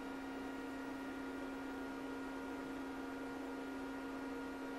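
Steady electrical hum: a low, even drone with a few fainter higher tones over it.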